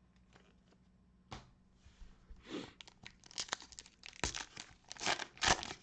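A cellophane-wrapped Panini Prizm cello pack being torn open, with a sharp click about a second in, then crackling and crinkling of the plastic wrapper that grows busier toward the end.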